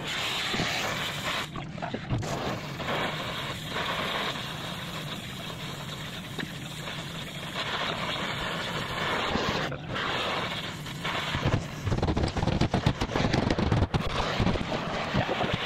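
Shop metalwork: a steady rushing noise, like a heating torch, with irregular metal knocks and bangs as a bent steel part is pried and hammered straight. The knocks are heaviest a little after the middle, until near the end.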